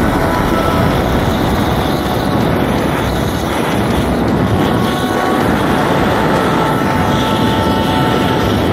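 Handheld gas torch burning, a loud steady hiss of gas and flame as it plays over a plastic phone charger.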